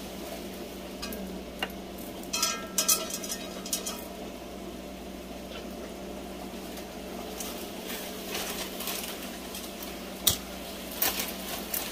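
Butter sizzling steadily in a hot pan as bread rolls are set in to warm, with a clatter of pan and utensils about two to four seconds in and a few sharp knocks near the end.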